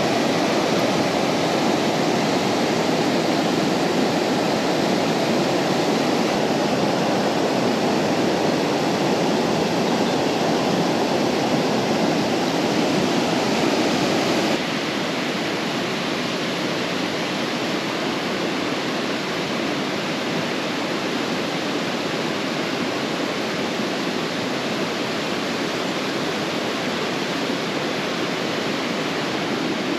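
Steady rushing of a fast-flowing trout river running over stones, a little quieter from about halfway through.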